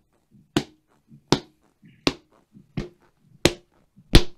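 Foley footsteps: sharp, evenly spaced steps, about three every two seconds, for robots walking into a room.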